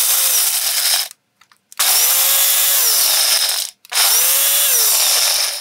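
Ninja blender grinding dry puppy kibble into a fine powder, run in three pulses with short pauses between, the first ending about a second in. The motor pitch climbs as each pulse starts and drops as it stops.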